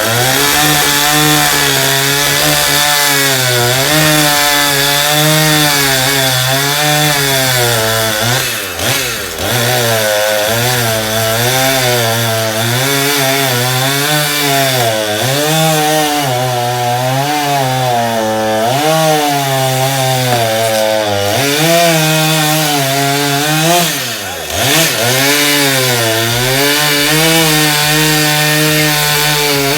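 Husqvarna two-stroke chainsaw cutting through a downed pecan limb. The engine pitch keeps rising and falling as the chain bites and frees up, dipping sharply twice, about nine seconds in and near the end.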